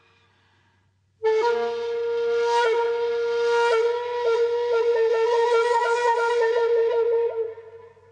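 Music: a flute-like wind instrument comes in about a second in and holds one long note, with a run of quick pitch flicks in its second half, then fades out near the end.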